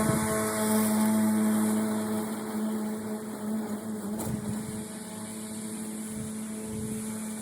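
Motor of a piece of lawn-care equipment running at a steady pitch, growing gradually quieter over the first few seconds.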